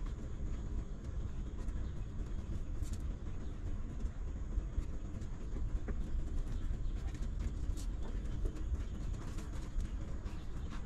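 A steady low rumble with faint, scattered soft smacking clicks from newborn puppies suckling at their mother.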